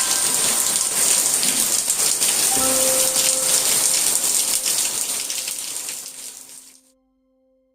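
Heavy rain falling, a dense patter of drops. It fades out near the end.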